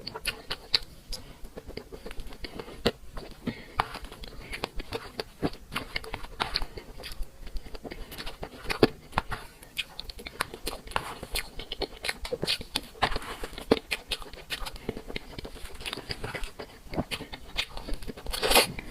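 Close-up eating sounds of cake being bitten and chewed: wet mouth clicks and smacks coming irregularly, several a second, with a few sharper crackles.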